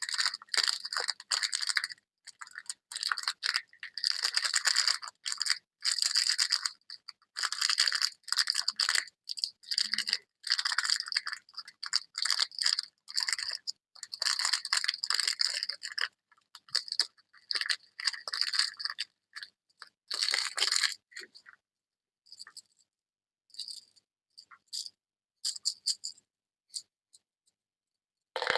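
Candy and surprise-egg packaging being handled and opened: irregular bursts of crinkling and rattling, busy at first and thinning to short, scattered crackles after about twenty seconds.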